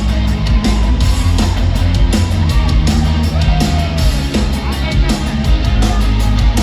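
Live rock band playing loudly, with heavy drums and distorted guitars, recorded from the crowd, with the audience's voices faintly mixed in.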